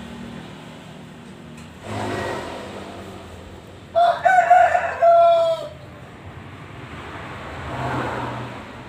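A single loud, drawn-out animal call about four seconds in, lasting about a second and a half, over a low background rumble that swells twice.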